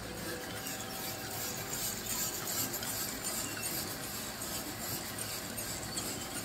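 Coffee roasting machine running while roasting robusta beans: a steady mechanical whir with a flickering hiss.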